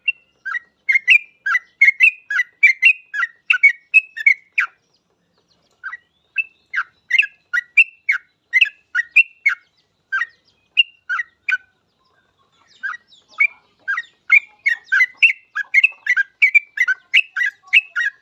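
Yellow-vented bulbul (trucukan) singing: quick bubbly notes, about three a second, in three bouts with short pauses between them.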